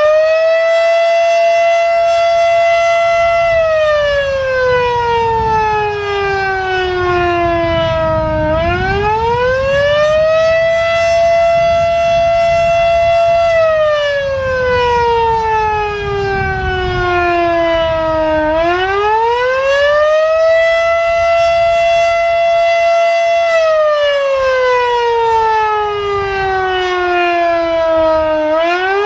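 Federal Sign & Signal Type 7 three-phase outdoor warning siren sounding the attack signal: a loud wail that climbs quickly, holds at the top for about three seconds, then slides slowly down over about five seconds before climbing again. The cycle repeats about every ten seconds.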